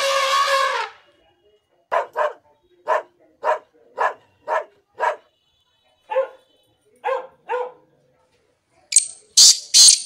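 Elephant trumpeting, ending about a second in. Then a dog barking in a steady run of about two barks a second, pausing briefly, then barking three more times. Near the end come a few sharp, very high-pitched calls.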